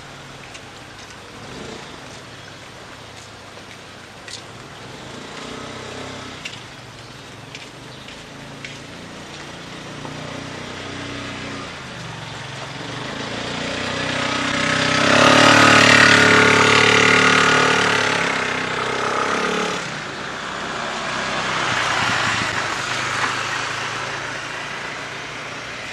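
A motor vehicle passing by: its engine grows louder over several seconds, is loudest about midway through, then fades away. A second, quieter pass swells and fades near the end.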